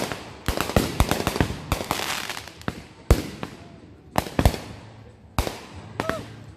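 Aerial firework shells bursting in quick succession during a finale barrage: about a dozen sharp bangs at uneven intervals, with crackling between them.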